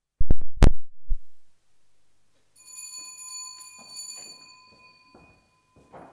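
A quick run of loud knocks, then a small bell rung once, its high ringing tone fading away over about three seconds, with soft footsteps under it.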